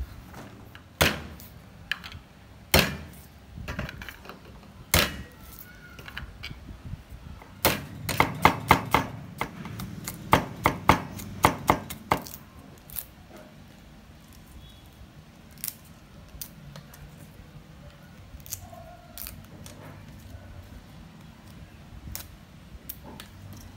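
A large kitchen knife chopping garlic on a round wooden chopping board: a fast, even run of sharp knocks, about three or four a second, in the middle, the loudest part. Before it, scattered clicks and clatter as a stainless steel tray is handled; after it, only faint, occasional light ticks.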